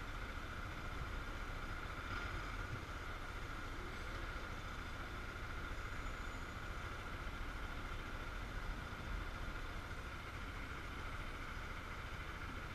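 Honda Falcon motorcycle's single-cylinder engine idling steadily while stopped, heard as a low, even rumble through a helmet-mounted camera.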